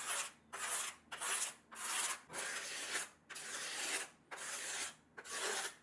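Razor blade scraping excess cured CA glue coating off the wooden veneer deck of a kayak model. It goes in short strokes, about nine of them, repeating roughly every half second.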